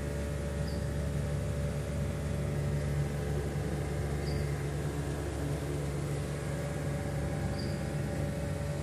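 Steady hum of a running electric pump motor and its star-delta control panel: a low mains hum with a few fainter steady tones above it. The pump is running again after a fault in the panel was fixed.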